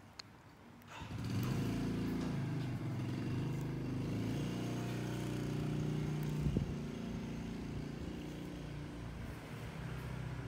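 An engine running, coming in about a second in with a steady low drone and slowly fading toward the end.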